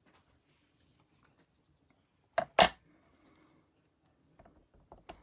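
Stamping supplies handled on a craft desk: two sharp knocks about a quarter-second apart, about two and a half seconds in, then a few faint clicks near the end.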